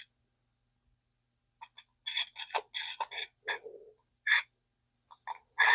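Scattered sharp clicks and short metallic clinks from an early-1960s all-metal Zebco spincast reel being handled as a part is threaded onto it with the cast button held down. They bunch up a couple of seconds in, then come singly.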